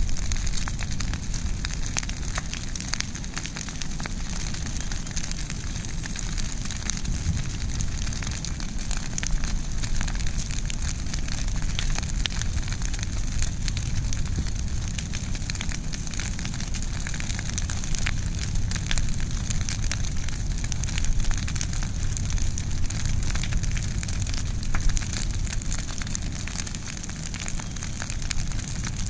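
Brush pile of tree limbs burning, crackling and popping steadily over a low rumble.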